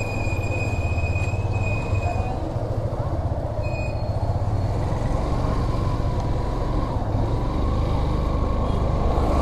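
Motorcycle engine running at low road speed, a steady low rumble whose note rises gradually in the second half. A thin high-pitched tone sounds for about two seconds at the start and again briefly about four seconds in.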